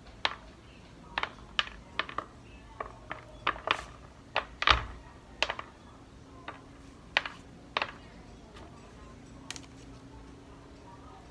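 Ripe black pepper berries picked off their spikes by hand and dropped into a white dish, each landing as a light sharp click; the clicks come irregularly, several a second at first, and thin out to a single one in the last few seconds.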